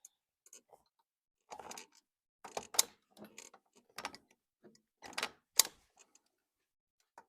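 A series of short cracks and clicks with brief rustling, the two sharpest about three and five and a half seconds in: spinal joints cracking under a chiropractor's manipulation.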